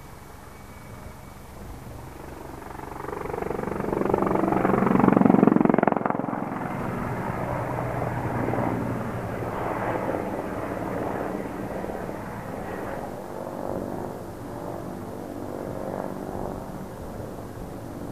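An Mi-24P attack helicopter flies past, with the rapid beat of its main rotor over the hum of its twin turboshaft engines. It grows louder to a peak about five seconds in, then runs on steadily and eases off near the end.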